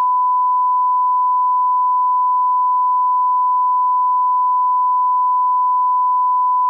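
1 kHz line-up reference tone from a broadcast tape's bars-and-tone leader, used to set audio levels: one unbroken, steady, pure pitch.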